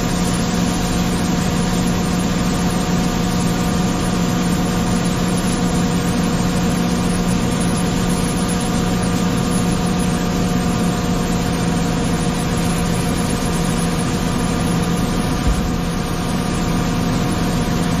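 A tractor engine running steadily, driving a grain cart's unloading auger, with wheat pouring into a semi trailer. The engine note and the auger stay even throughout.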